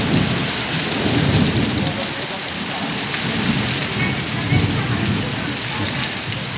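Heavy rain pouring down hard on a flooded street, with a low, uneven rumble underneath.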